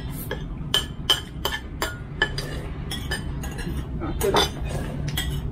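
Cutlery clinking against bowls and plates during a meal: about a dozen light, irregular clinks, each with a short ring.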